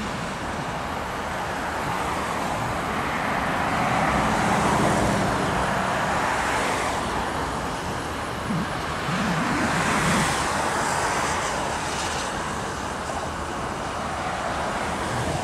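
Loaded coal hopper cars of a freight train rolling past, a steady rolling noise that swells about four seconds in and again about ten seconds in, mixed with road traffic noise.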